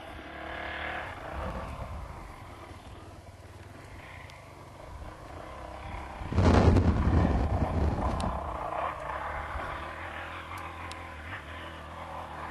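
Dirt bike engine running and revving in the distance. A loud rough rush of noise, like wind hitting the microphone, comes in about six seconds in and fades over the next two seconds.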